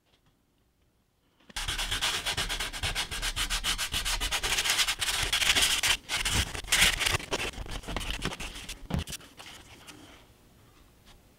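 Rapid scratching and rubbing strokes of a hand tool on card, starting about a second and a half in and tailing off near the end.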